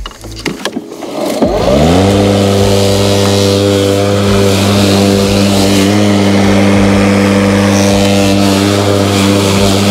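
Husqvarna LC347VLI battery lawn mower starting: a few clicks, then the electric motor and blade spin up with a rising whine over about a second and settle into a steady hum.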